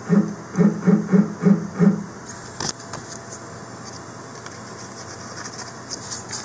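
Lathe axis stepper motor buzzing through six short, evenly pitched incremental jog moves in the first two seconds, stepping the turning tool toward the workpiece to touch off on a slip of paper. After that, paper rustling with light ticks.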